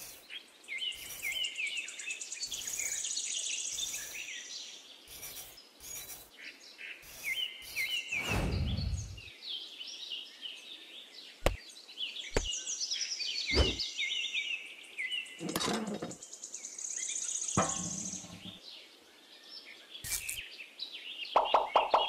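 Small birds chirping and twittering throughout, with scattered light scrapes and a few sharp taps from hands working a miniature diorama: a tiny trowel scraping sand, and a small clay base being set down.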